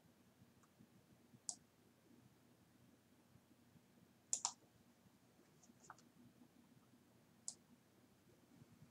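A few sharp computer mouse clicks over quiet room tone, including a quick double click about halfway through.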